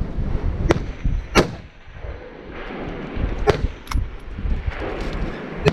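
Bolt-action rifle in 6.5 Creedmoor firing a string of shots on a timed stage: sharp cracks with echoes, about five in all. The loudest come about a second and a half in and at the very end, over a low rumble of wind.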